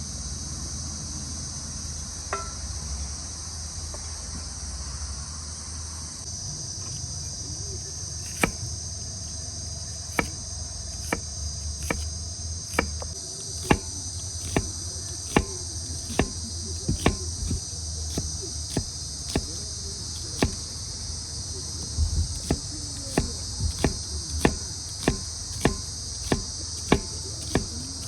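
Steady chorus of crickets, with a series of sharp knocks that begin about a third of the way in and come more often, at roughly one to two a second, near the end.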